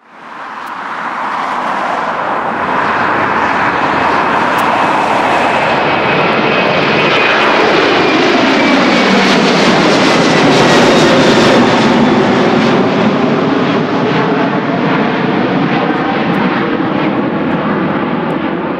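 Airbus A330 twin-jet airliner climbing out at takeoff thrust: loud, steady jet-engine noise that fades in over the first couple of seconds, with a faint high whine sliding down in pitch as the aircraft passes and draws away.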